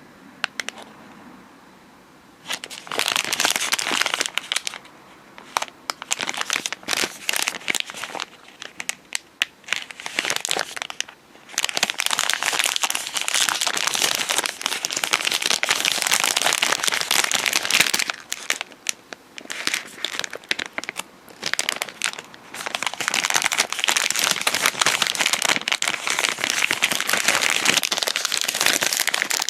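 Crinkly plastic wrapper of a packaged sugar-coated fried bread (agepan) being handled and opened. The dense crinkling starts about two and a half seconds in and goes on in long stretches with short pauses.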